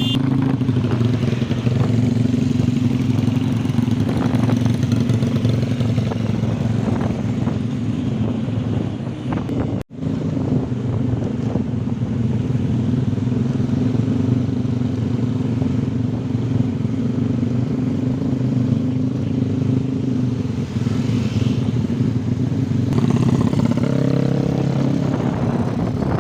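Motorcycle engine idling steadily, with a short break in the sound about ten seconds in.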